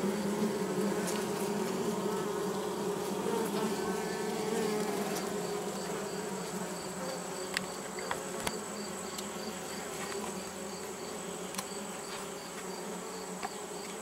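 Honeybee colony buzzing inside a top bar hive: a steady, dense hum of many bees, easing slightly toward the end, with a few faint ticks.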